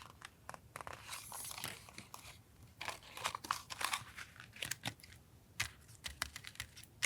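Paper being handled for a collage: irregular crinkling and rustling with short sharp clicks and taps.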